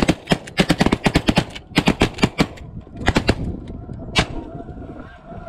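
A volley of shotgun fire from several hunters shooting at once, with shots coming fast and overlapping through the first two and a half seconds. A few more shots follow around three seconds in, and a last single shot comes a little after four seconds.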